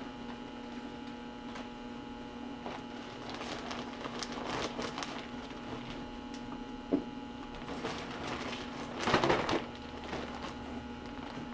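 Rustling and crinkling of a Scrubba wash bag, a roll-top dry bag, as clothes are stuffed into it and it is handled, loudest about nine seconds in, over a steady electrical hum.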